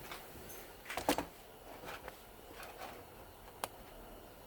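Faint clicks and light knocks of small metal parts and tools being handled while taking apart an electric fan motor: a small cluster about a second in, a few soft ticks, and one sharp click near the end.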